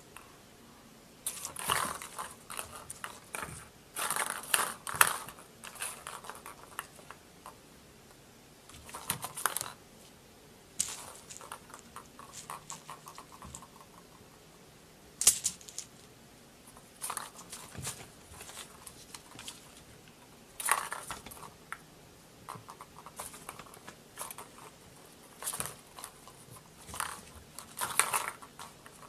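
A kitten batting at a plastic cat toy: irregular bursts of plastic clattering and rustling, with a few sharper clicks.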